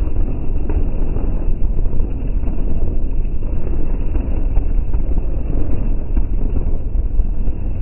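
Dirt bike and ATV quad engines riding past in a pack, a steady loud noise mixed with wind buffeting the microphone.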